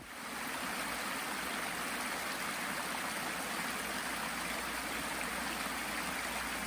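Small stream running and splashing over rocks, a steady rush of water.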